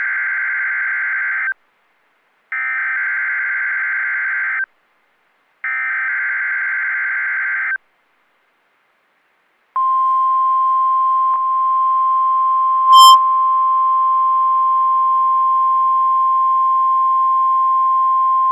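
NOAA Weather Radio Required Weekly Test: three short bursts of SAME digital header data, a buzzy warbling screech, separated by brief silences. After a pause comes the single steady warning-alarm tone, near 1050 Hz, held for about nine seconds, with one short sharp blip about halfway through it.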